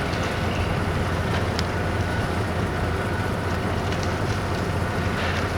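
Steady low drone of a heavy machine's engine running on a construction site, with a few faint distant clicks.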